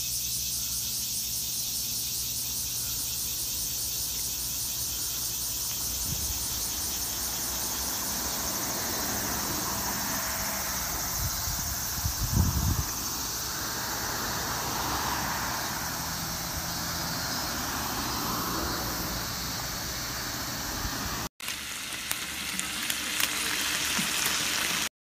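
Cicadas singing in the trees, a steady high-pitched pulsing chorus. A car drives past about halfway through. Near the end, after a sudden cut, slices of beef sizzle on a hot plate.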